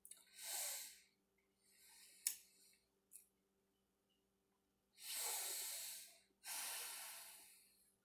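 A man breathing out hard through the mouth after a sip of hot cinnamon whiskey. Two shorter, softer breaths come with a sharp click between them, then two long, louder exhales start about five seconds in.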